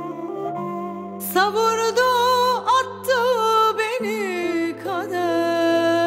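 Instrumental passage of a slow Turkish ballad. A classical kemençe plays a wavering, ornamented melody with heavy vibrato over sustained keyboard notes and acoustic guitar.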